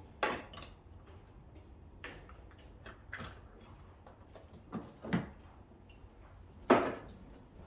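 A handful of separate plastic clicks and knocks as a filter cartridge is unscrewed with a spanner tool and pulled from a reverse-osmosis water purifier, with quiet between them and the loudest knock near the end.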